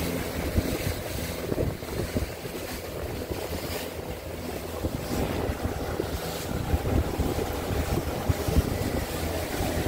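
A motorboat's outboard engine runs steadily under way, with wind buffeting the microphone and water rushing along the hull.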